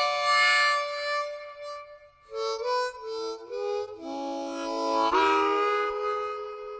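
Harmonica music: a long held chord, then a run of short notes, then another long held chord that bends slightly as it starts.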